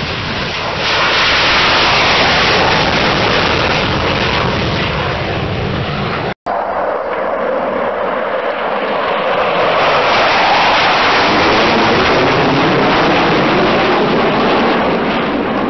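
Loud jet roar from McDonnell Douglas CF-18 Hornet fighters, whose twin turbofan engines make the sound. First a pair taking off, then, after a brief cut about six seconds in, a formation flying overhead, the roar swelling as they pass.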